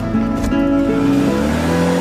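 Music with sustained pitched notes that change about every half second, and a low tone that rises near the end.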